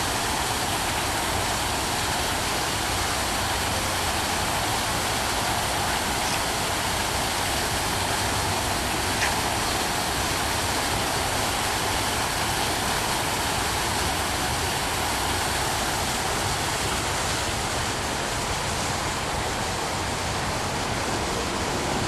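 Small garden waterfall pouring over a rock ledge into a pond: a steady, even rush of falling water.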